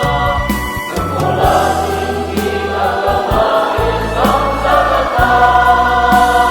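Choir singing a hymn in long held chords over a steady low accompaniment.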